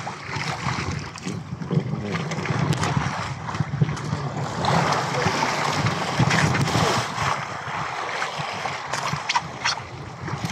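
Wind on the microphone and sea water splashing against a small outrigger fishing boat, with a few light knocks near the end.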